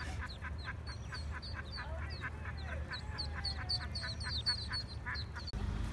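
Mallard ducklings peeping together: a rapid stream of short, high, falling peeps, several a second, over a steady low rumble.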